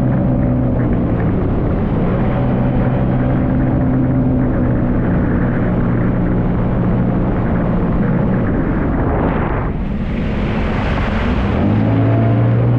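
Jet ski engine running at a steady, high pitch, with a rushing noise of wind or spray. About nine and a half seconds in, the engine note fades under a louder rush, then comes back stronger near the end.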